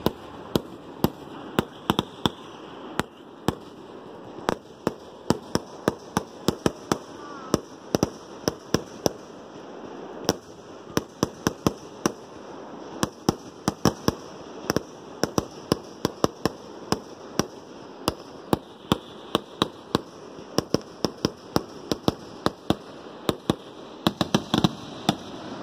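Fireworks bursting in the sky: a rapid, unbroken run of sharp bangs and crackles, about three or four a second, over a steady crackling haze.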